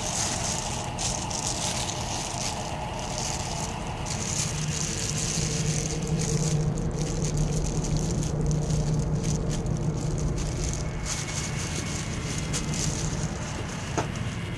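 Plastic bread bag rustling and crinkling as it is handled, over a steady background hum, with one sharp click near the end.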